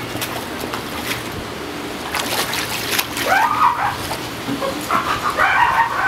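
Water splashing and sloshing as juvenile elephant seals swim and dive in a pool. Two short pitched calls stand out, one rising about three seconds in and another near the end.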